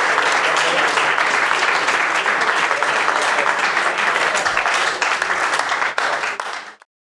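Room full of people applauding steadily, dense clapping that cuts off abruptly near the end.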